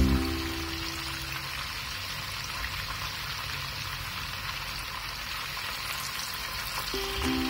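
Cornflour-coated chicken strips deep-frying in hot oil, a steady bubbling sizzle. Background music fades out in the first second and comes back near the end.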